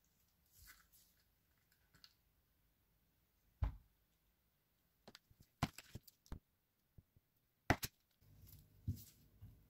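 Sparse, quiet kitchen handling sounds: a few sharp clicks and knocks as a chef's knife slices a block of butter on a wooden cutting board and pieces are set into a glass bowl on a kitchen scale. Near the end a silicone whisk starts working the soft butter in the glass bowl, with soft knocks against the bowl.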